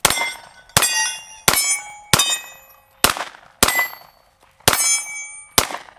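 Eight shots from a Bul Armory Axe FS Hatchet 9mm pistol, fired at a steady pace a little under a second apart, each one followed by the ringing clang of a hit on a steel target.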